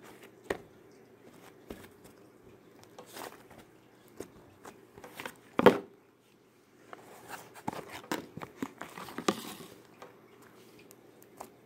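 Slime being pressed and squeezed by hand, making scattered sticky clicks and small crackly pops, thickest in a run of clicking in the second half. One louder knock on the table about halfway through.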